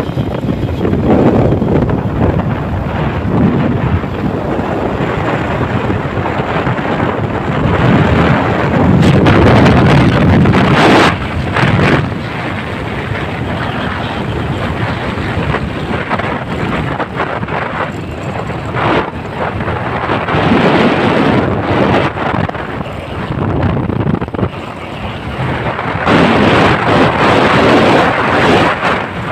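Wind rushing over a phone's microphone on a moving motorcycle, a loud rumbling noise that swells and eases several times, with the ride's vehicle noise underneath.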